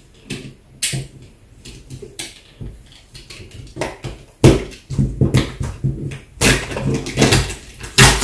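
A large cardboard carton being worked open by hand at its base: irregular clicks, taps and thumps of cardboard and plastic fasteners, sparse at first and turning into a denser run of louder knocks about halfway through.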